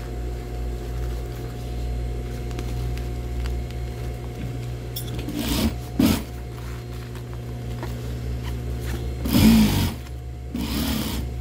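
Industrial single-needle sewing machine stitching heavy backpack fabric: a steady motor hum with short louder runs about halfway through and twice near the end.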